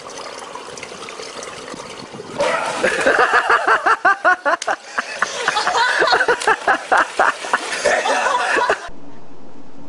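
Water running and splashing, then from about two and a half seconds in people laughing hard in quick, repeated bursts. Near the end it cuts abruptly to a steady hiss.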